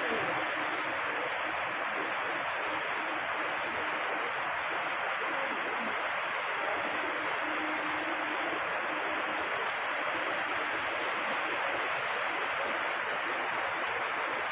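Stream water rushing steadily: a constant, even noise of flowing water.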